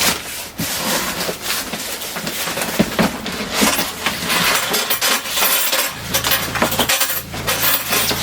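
Plastic wrapping and cardboard packing being pulled and handled as a printer is unpacked from its box: continuous rustling and crinkling with irregular clicks and knocks.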